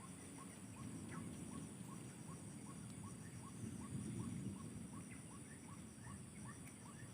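A bird repeating a short, falling call about three times a second, over a steady high insect drone.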